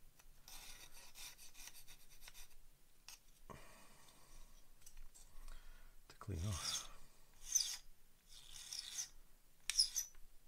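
Small round metal file rasping in short, uneven strokes against a plastic model kit part, cleaning off the burr left where the part was cut from the sprue. The strokes get louder in the second half.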